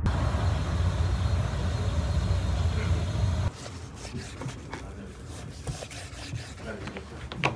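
Outdoor background noise with a steady low rumble that cuts off abruptly about three and a half seconds in. A quieter kitchen background with scattered light clicks and knocks follows.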